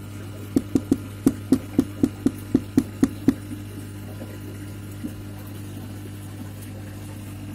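Steady low electric hum, with a quick run of about a dozen sharp knocks, about four a second, starting about half a second in and stopping after about three seconds.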